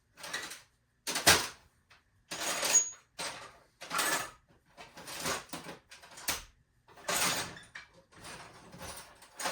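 Metal hand tools clattering and scraping as they are rummaged through in a search for the right one: a run of separate knocks and rattles, the loudest about a second in.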